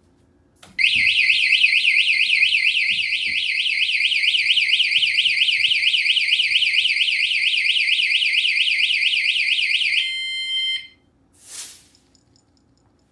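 Idem L1R bicycle taillight's built-in anti-theft alarm going off: a loud, fast-warbling electronic siren for about ten seconds, which briefly changes to a steady beep and then cuts off suddenly. A short rustle follows.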